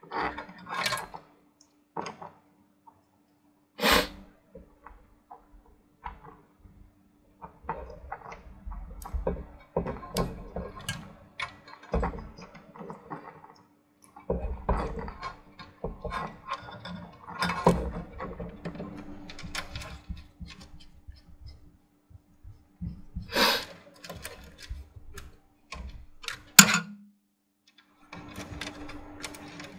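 Hands routing and plugging in power and fan cables inside a small computer case: scattered plastic clicks, knocks and rustling of cables, with a few sharper clicks, about four seconds in and twice near the end.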